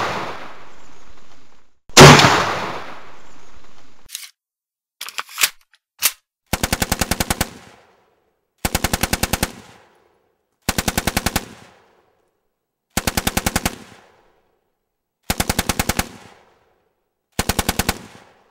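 Gunfire sound effects: two heavy single shots, each with a long echoing decay, then a few sharp clicks, then six bursts of rapid machine-gun fire, each about a second long and spaced about two seconds apart.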